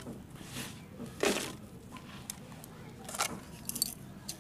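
Loose, dry clay soil crumbling and falling as it is scooped by hand and with a plastic cup, heard as a series of short rustling, crunchy bursts; the loudest comes a little over a second in.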